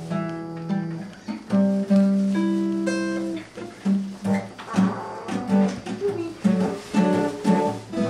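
Acoustic guitar being played, chords picked and strummed one after another, some left ringing for a second or so.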